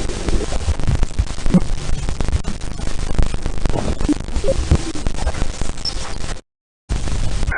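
Space-themed sound effect: dense crackling static over a low rumble. It cuts out for about half a second near the end and then starts again.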